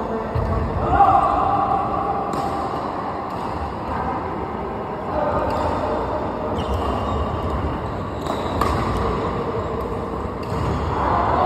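Badminton rally: rackets hitting a shuttlecock about seven times, a sharp crack every one to two seconds, over steady background noise.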